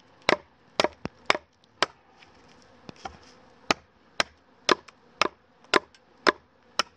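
Schrade knife chopping into the end of a half-dried acacia fence stake to sharpen it to a point: about a dozen sharp chops, roughly two a second, with a short lull of lighter taps about two seconds in.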